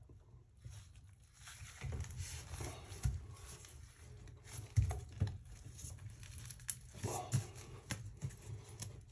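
Light scraping, rustling and clicking of a gloved hand twisting a plastic toilet repair flange in the drain opening, with a few dull knocks, the loudest about five seconds in.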